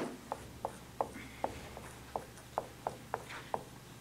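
Dry-erase marker writing on a whiteboard: about ten short, sharp strokes, irregular, two or three a second.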